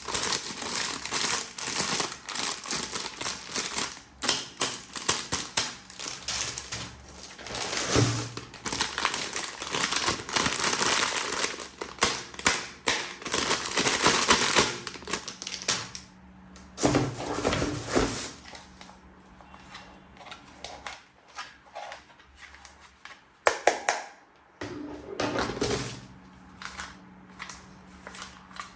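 Plastic packaging crinkling and rustling while plastic toy pieces are handled, with quick irregular clicks and taps coming in clusters and short pauses between.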